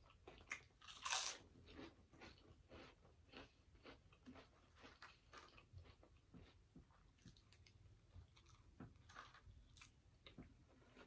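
Close-miked crunch of a bite into a potato chip about a second in, the loudest sound, followed by steady chewing with many small crunches and mouth clicks.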